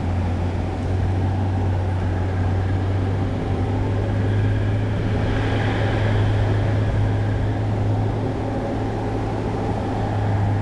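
A steady low machine hum that holds at an even pitch and level throughout.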